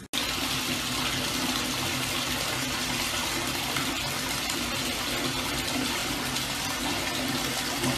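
Shower running behind a glass door: a steady rush of spraying water, with a faint low hum beneath it.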